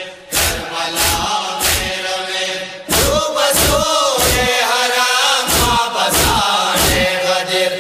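A group chanting a Hazaragi noha, a Shia lament, in unison, kept in time by rhythmic chest-beating (matam) at about one and a half beats a second. The chanting swells louder about three seconds in.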